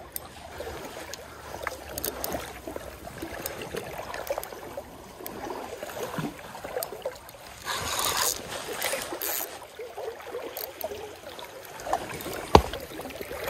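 River current rushing and gurgling around a wading angler, with a couple of brief louder bursts about eight and nine seconds in and a single sharp click near the end.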